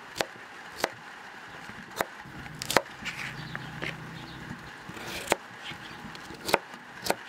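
Kitchen knife chopping through a cucumber onto a plastic cutting board: sharp, separate chops, about seven of them at an uneven pace.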